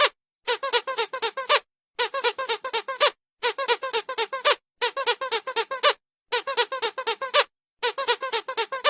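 Squeaky dog toy squeezed rapidly, about eight squeaks a second, in six bursts of about a second each with short pauses between them.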